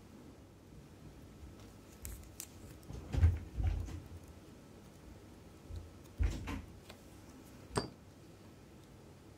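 Watch-repair bench work: a few scattered light taps and clicks as small tools and parts are handled and set down, with the heaviest knock a little after three seconds in and one sharp click near the end.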